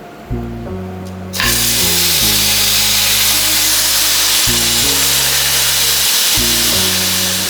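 A red-hot iron ball hissing and sizzling into steam on ice, the loud hiss starting suddenly about a second and a half in and holding steady. Background music with a stepping bass line plays underneath.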